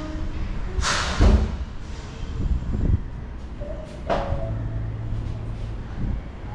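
Metal poles of a standing hammock frame knocking and clattering as the frame is lifted and tilted. The loudest knock comes about a second in, with further knocks near three and four seconds in and once more near the end.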